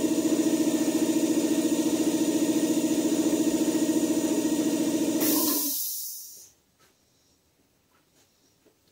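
Air compressor running steadily with a fast pulsing hum, then cutting out about five seconds in: a short burst of air hiss and the motor winding down, leaving only a few faint clicks.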